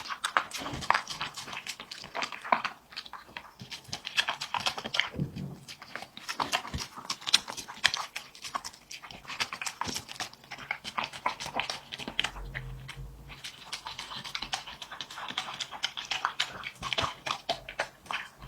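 A dog eating: a fast, irregular run of wet chewing, smacking and licking clicks.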